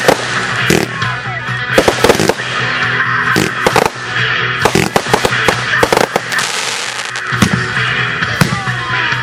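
Aerial firework shells and comets bursting in an irregular string of sharp bangs and crackles, with music playing throughout.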